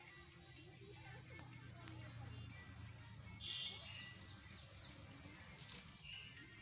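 Faint rural outdoor ambience with scattered high bird-like chirps, one a little louder about halfway through.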